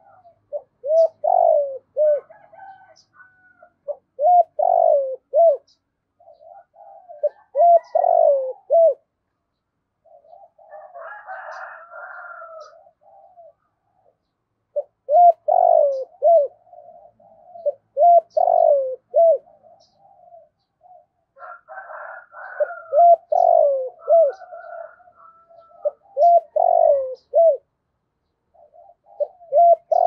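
Spotted dove cooing: a short phrase of low, falling coos repeated every three or four seconds.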